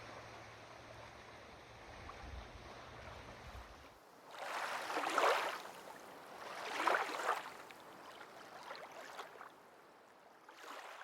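Water splashing: two loud splashes about four and a half and six and a half seconds in, then a few smaller ones, after a few seconds of steady outdoor hiss with a low hum.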